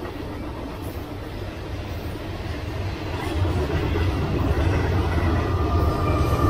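Freight cars rolling past on jointed rail, a steady rumble of wheels and car bodies. From about halfway through, the diesel engine of a Union Pacific mid-train distributed power locomotive grows louder as it approaches.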